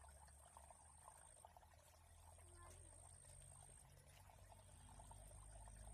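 Near silence: a faint trickle of water, with a thin high steady whine that breaks off and starts again every couple of seconds.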